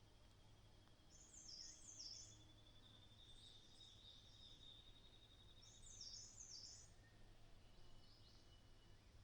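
Faint wild birdsong: a bird sings a short phrase of quick high zigzagging notes twice, about four and a half seconds apart. Under it runs a thin steady high buzzing trill that stops about six seconds in, over a low steady hum.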